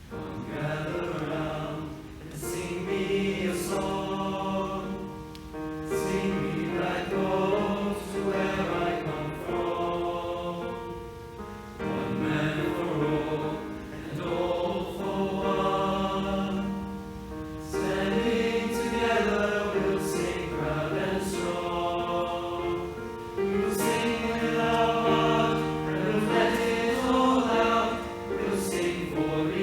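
School choir singing in phrases, with brief pauses for breath between them.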